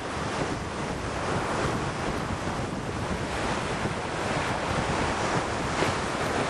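Ocean surf breaking and washing on the beach, with wind buffeting the microphone; the wash swells briefly near the end.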